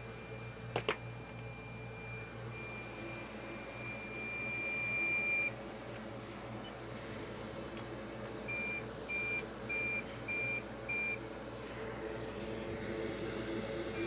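Electronic beeping from a soldering station: a steady high beep that swells louder for about five seconds and then cuts off, and a few seconds later five short beeps, about two a second. Two quick clicks come about a second in, over a steady low hum of bench equipment.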